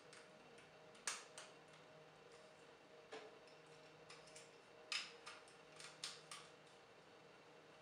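Plastic Transformers toy being handled and transformed: scattered sharp plastic clicks as its joints and parts are moved and pegged into place, the loudest about a second in and about five seconds in.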